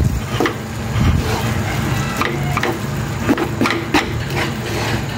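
Wooden spatula stirring and scraping corned beef and egg around a nonstick frying pan, irregular scrapes and taps over a light sizzle of frying.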